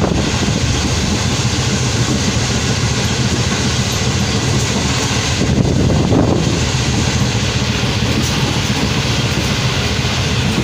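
Passenger train coaches running at speed: a loud, steady rumble of wheels on the track with a rushing noise over it.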